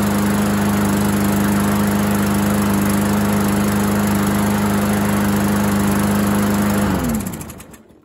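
Briggs & Stratton E-Series single-cylinder engine on a walk-behind mower running at a steady speed, then shutting off about seven seconds in, its pitch dropping as it spins down to silence.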